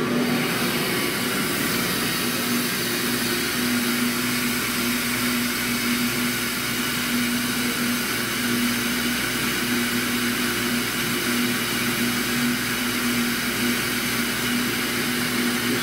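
A Walter Helitronic CNC tool and cutter grinder running its warm-up program, with the grinding spindle turning at about 2,000 RPM. It makes a steady machine hum with one constant tone over a high hiss.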